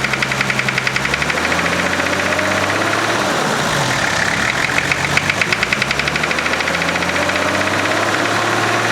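Nissan GQ Patrol's TD42 straight-six diesel running with a fast, regular knock, the revs rising and falling back twice. This is the engine knock, which the owner puts down to an injector knock or similar.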